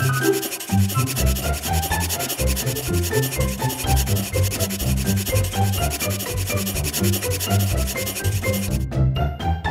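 Felt-tip permanent marker scratching and rubbing on paper as it inks long outline strokes. The scratching stops abruptly near the end.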